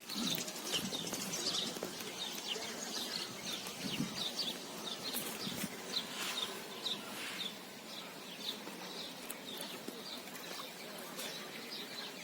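Small birds chirping, many short high chirps repeated over a faint steady hiss of outdoor air.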